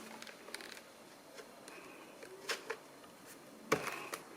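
A few light clicks and taps of plastic vacuum-cleaner parts being handled and fitted back together, with a sharper knock near the end.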